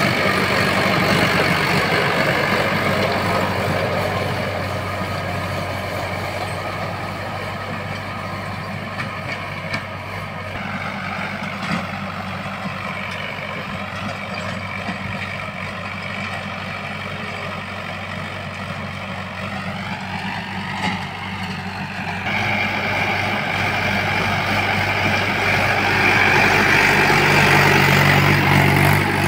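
Swaraj 843 XM tractor's three-cylinder diesel engine running steadily under load as it pulls a rotavator tilling the soil. It grows fainter as the tractor moves off across the field and louder again as it comes back close, about three quarters of the way in.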